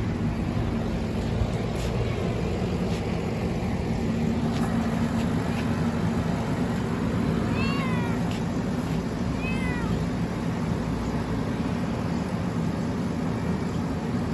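Domestic cat meowing twice in the middle, each a short call that rises and falls in pitch, over steady low background noise.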